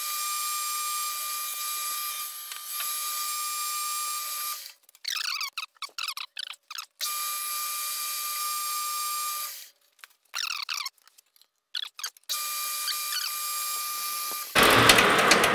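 Metal lathe taking a cut on a steel pulley blank, likely 4140, with stringy swarf coming off: a steady high whine, with the cutting tool squealing in wavering bursts about five seconds in and again about ten seconds in, and a few brief dropouts.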